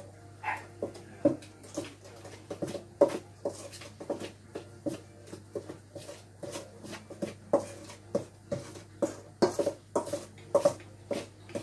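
Spoon clinking and scraping against a stainless steel mixing bowl as blackberries are stirred into cake batter: irregular short ringing knocks, two or three a second.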